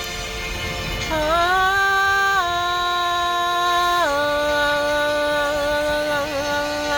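A woman singing long held, wordless notes over a steady sustained musical backing. Her voice comes in about a second in and holds each note, stepping down in pitch twice, at about two and a half and four seconds in.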